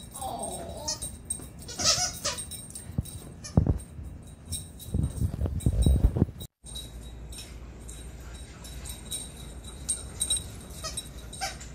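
A standard poodle and a poodle puppy playing: a short falling dog whine, then scuffles and knocks on the carpet with a low rumble, and a few faint yips near the end. The sound breaks off abruptly about six and a half seconds in.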